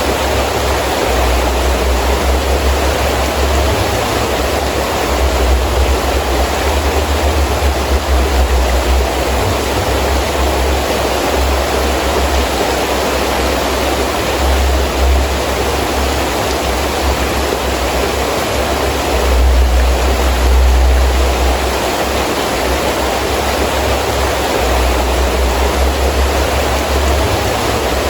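Heavy rain falling steadily with gusting wind, a deep rumble swelling and fading underneath, loudest around seven seconds in and again around twenty seconds in.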